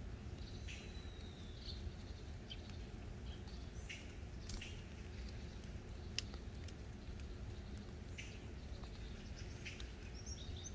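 Scattered short bird chirps and calls, one of them a drawn-out whistle about a second in, over a steady low outdoor rumble. A single sharp click comes about six seconds in.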